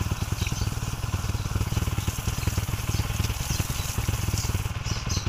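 Yamaha Sniper 150's single-cylinder engine idling with a steady, rapid pulse, while water from a garden hose sprays over the bike.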